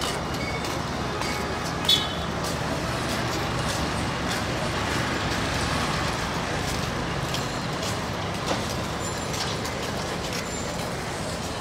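Steady road traffic noise, with a short, sharp high-pitched sound about two seconds in.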